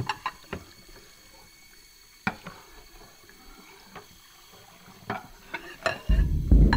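Scattered clinks and knocks of glassware and dishes being handled on a kitchen counter, about eight sharp ticks spread out. About six seconds in, a loud low rumbling sound starts suddenly.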